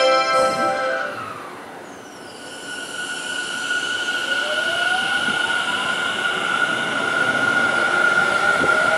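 Tobu 50070 series electric train pulling out and accelerating. The whine of its inverter and traction motors rises steadily in pitch over the rolling noise, with a few wheel clicks near the end.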